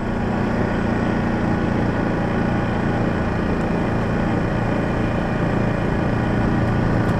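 ATV (four-wheeler) engine running steadily under way along a dirt trail.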